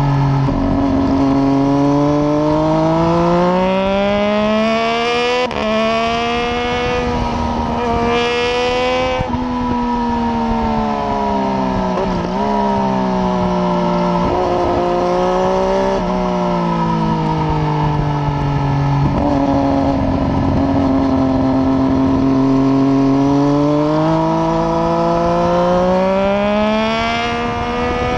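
Triumph Daytona 675's three-cylinder engine through a decatted header and an unbaffled Arrow exhaust, pulling hard and rising in pitch with two sharp upshifts in the first ten seconds. It then winds down as the bike slows, with a few short throttle blips on the downshifts, and climbs in pitch again in the last third.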